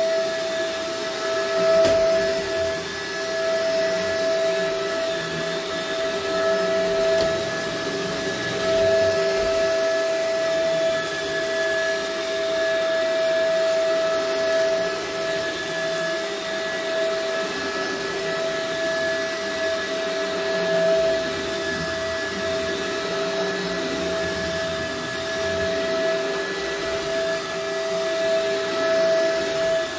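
Shark upright vacuum cleaner running steadily on an area rug, a constant motor whine over a rush of suction, its level wavering slightly as it is pushed back and forth.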